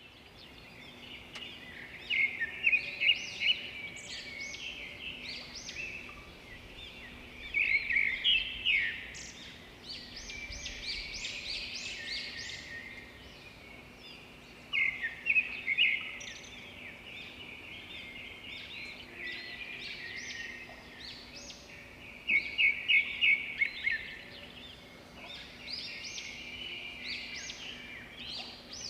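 Many small birds chirping and calling in the trees, with quick runs of high, overlapping notes that come in loud spells every several seconds over a faint outdoor background.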